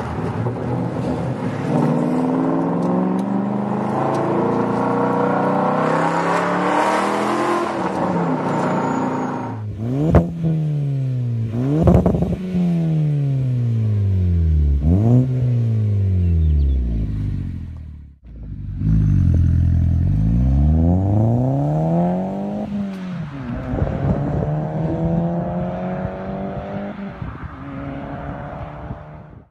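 Audi RS4 with a Tubi exhaust heard from inside the cabin, its engine note rising steadily as it accelerates. About ten seconds in, a B7 Audi A4's aftermarket exhaust takes over, revved sharply three times with quick rises and slower falls. It is then revved longer, the pitch rising and falling several times.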